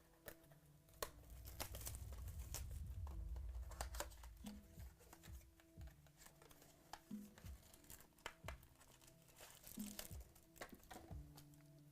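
Trading card pack wrappers being crinkled and torn open, with scattered crackles and clicks, over faint background music. A low rumble from handling starts about a second and a half in and lasts a few seconds.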